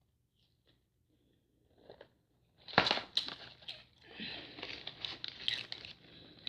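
Crinkling and crunching of a fast-food meal being handled and eaten: a sharp crunch about three seconds in, then a couple of seconds of close crackling and crinkling.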